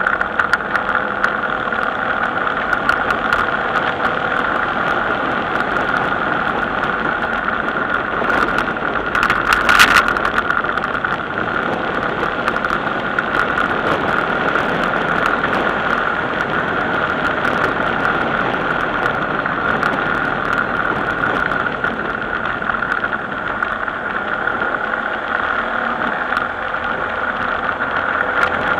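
Motor vehicle's engine running steadily while travelling, heard from an onboard camera, with a brief louder burst about ten seconds in.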